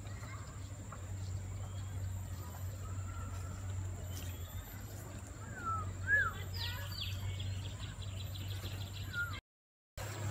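Outdoor ambience with a steady low hum, and a few short bird chirps, quick rising-and-falling and falling whistles, between about five and seven seconds in.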